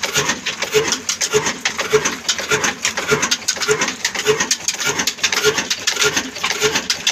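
Old black single-cylinder horizontal diesel engine, a Ruston-type 'desi' engine, running steadily with a large flywheel. It gives an even beat of knocks, about three a second.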